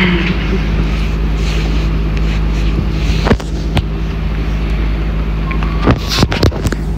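A steady low mechanical hum, with a sharp knock about a third of the way in and a few quick knocks and bumps near the end.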